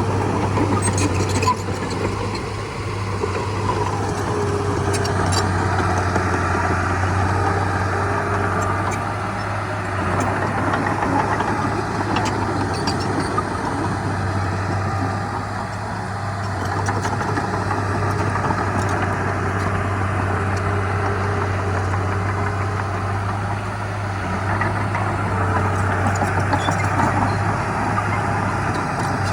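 Heavy diesel earthmoving machinery engine running steadily with a deep constant hum, its sound swelling and easing a few times.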